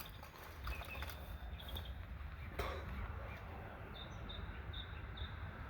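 A small bird chirping a row of short high notes, about two a second, in the second half, over a steady low rumble. A single soft knock comes about halfway through.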